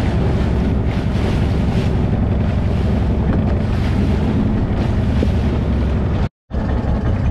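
Small fishing boat under way: its engine running steadily under the rush of water along the hull and wind buffeting the microphone. The sound cuts out completely for a moment about six seconds in.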